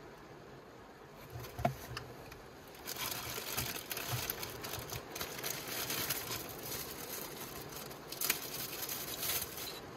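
Clear plastic parts bags crinkling and rustling as they are handled and opened, starting about three seconds in, with a sharper crackle near the end. Before that, a few light knocks and a click from handling the wiring and connectors.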